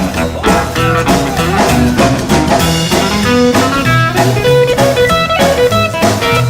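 Instrumental music: a blues-style guitar break with bass and drums, played with no vocals.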